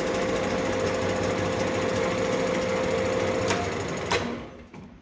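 LeBlond Regal gear-head lathe running at about 179 RPM in its middle speed range, a steady whine over a busy mechanical rattle from the headstock gearing. About three and a half seconds in the drive stops and the machine runs down, with a single clunk.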